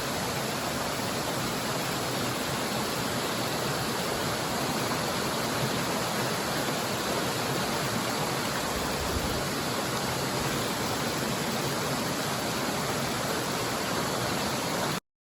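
Waterfall: a steady, even rush of falling water, cutting off suddenly near the end.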